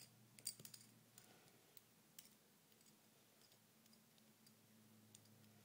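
Faint, scattered clicks of a small plastic Beyblade spin track being handled in the fingers, bunched in the first second or two, over near-silent room tone.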